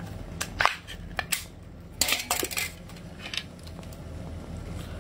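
Easy-open pull-tab lid of a can being peeled off by hand: several sharp metal clicks in the first second and a half, then a short scraping rasp about two seconds in and one more click.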